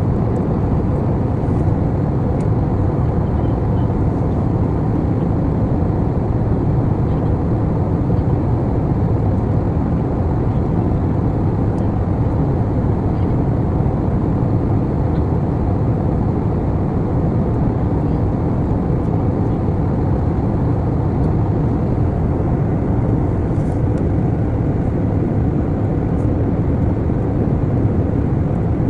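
Steady low rumble of an airliner cabin in flight, unchanging throughout, with a few faint clicks.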